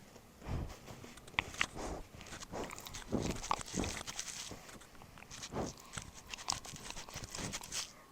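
Labrador retriever puppy chewing and mouthing right on a microphone: irregular crunching, scraping and clicking of teeth against it.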